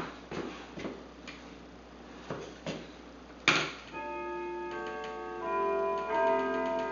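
Scattered clicks of a computer keyboard and mouse, with one louder click about halfway through. Then a tune of held electronic notes begins and plays on.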